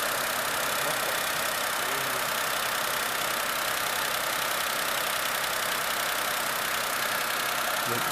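A 2004 Honda Life kei car's 660 cc three-cylinder engine running at a steady speed during an alternator charging test.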